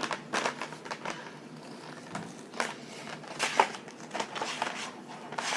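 Crinkly packaging of a clay set crackling and crinkling irregularly as hands work at it, trying to open it.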